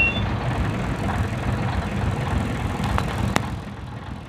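Leyland double-decker bus's diesel engine running low and steady, heard from inside the bus. Two sharp clicks come about three seconds in, and the engine sound drops a little near the end.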